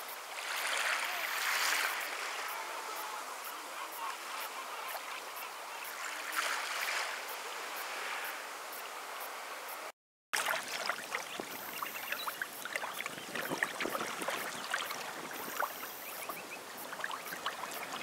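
Water lapping and washing, a steady hiss with two louder swells of splashing. After a short dropout about ten seconds in, a different ambience of many small scattered clicks and rustles.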